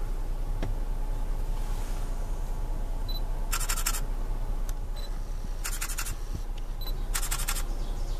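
A digital camera's short focus beep followed by a rapid burst of shutter clicks lasting about half a second, three times, starting about three and a half seconds in. Under it runs the steady low hum of the car.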